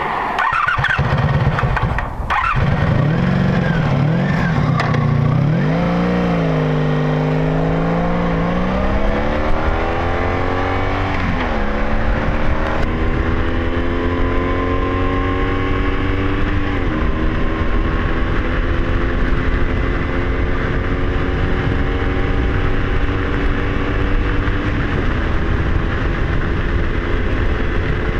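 Honda Magna 700 V4 motorcycle engine pulling away and accelerating through the gears, its pitch climbing in each gear and dropping at upshifts about 11 and 17 seconds in. It then settles into a slowly rising cruise with another shift near the end, over steady wind rush.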